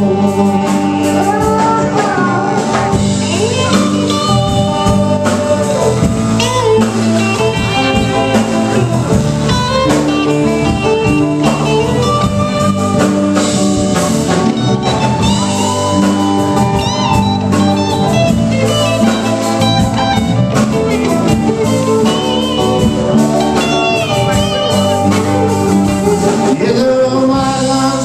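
Live band playing a blues-flavoured song on acoustic and electric guitars and drums, with a man singing.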